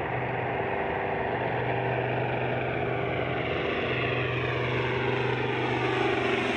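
B-25 Mitchell bomber's twin radial piston engines and propellers running in a low flyby. The pitch falls over the last few seconds as the plane passes overhead.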